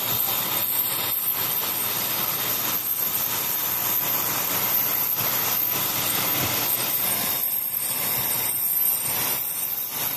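Steady, loud rushing noise with a constant high whine, like a jet turbine running.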